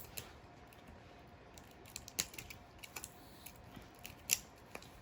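Light, irregular clicks and taps of small plastic doll pieces being handled and fitted, with one louder tap a little after four seconds in.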